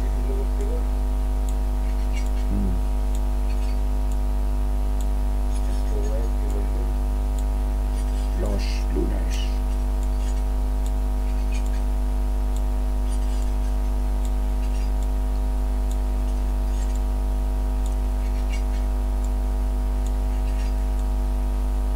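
Steady low hum made of several even, unchanging tones over a deep rumble, holding at the same level and pitch throughout, with a few faint murmured voice fragments.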